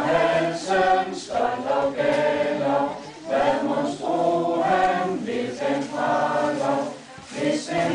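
A group of people singing a song together, in phrases of held notes with brief breaks about three seconds in and again near the end.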